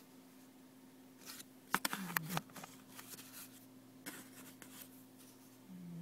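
Cat snoring in its sleep, short raspy breaths about once a second, with a few sharp clicks about two seconds in.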